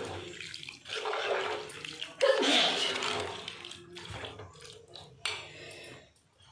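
Metal ladle stirring thick chicken curry in an aluminium pot: wet scraping and sloshing in three bursts over the first few seconds, then one sharp knock about five seconds in.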